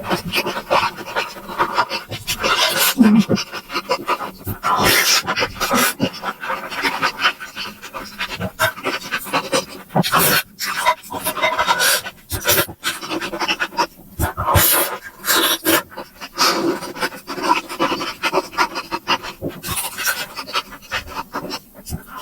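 Close-miked eating sounds: chewing and wet mouth smacks on momos, an irregular run of short clicks and noisy bursts.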